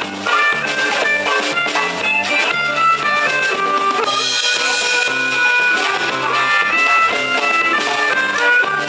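Instrumental band music with bass guitar, drum kit and a lead melody line; a cymbal wash swells about four seconds in.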